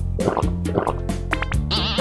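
Children's background music with a steady beat. Near the end a high, wavering cartoon sound effect comes in over it.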